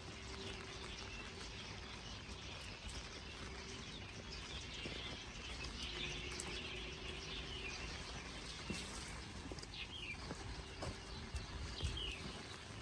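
Steady rainfall pattering, with a few short falling bird chirps in the last few seconds.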